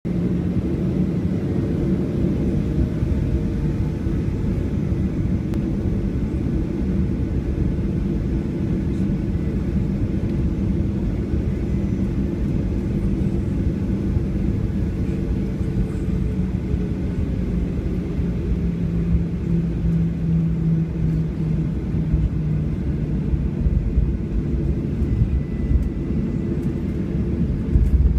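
Cabin noise inside a Boeing 737-800 taxiing: the CFM56-7B engines running at low taxi thrust, a steady low rumble with a held hum that dips slightly in pitch about two-thirds of the way through.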